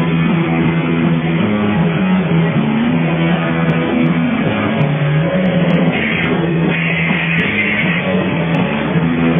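Rock band playing live, loud and steady, with guitar to the fore.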